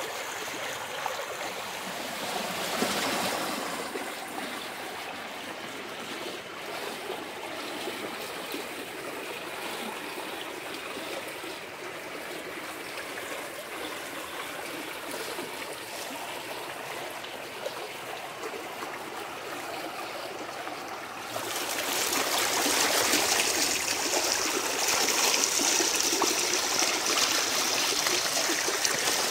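Muddy storm floodwater rushing out of a culvert pipe and down a rocky creek channel, a steady rushing sound that gets louder and brighter about three-quarters of the way through.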